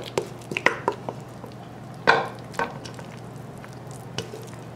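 A spoon scraping a wet ground-turkey meatloaf mixture out of a stainless steel bowl into a loaf dish: scattered scrapes and clicks of the spoon against the bowl, with soft squelches as the mix drops in. The loudest scrape comes about two seconds in.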